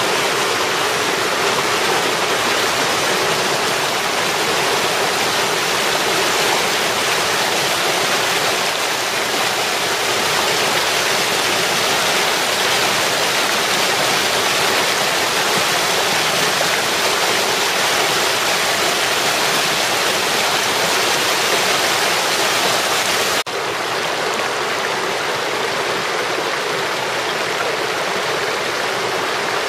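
A shallow, rocky mountain stream running fast over stones in small rapids: a steady rush of splashing water. About two-thirds of the way through it changes abruptly to a slightly quieter, duller rush.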